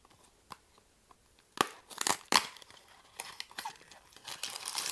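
Blind-box packaging being torn open and crinkled by hand: a few faint clicks, then sharp tearing strokes about one and a half seconds in, followed by steady crinkling.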